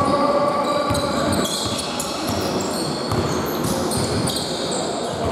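Basketball game on a wooden indoor court: a ball bouncing, with short high squeaks from shoes on the floor, in a large echoing sports hall.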